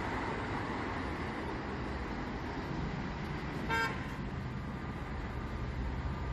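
Steady street traffic noise, with a vehicle horn giving one short toot about four seconds in.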